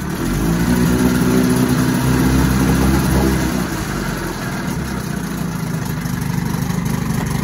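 1977 Johnson 9.9 hp two-stroke twin outboard running in reverse gear in a test tank, speeding up just after the start and easing back toward idle about halfway through.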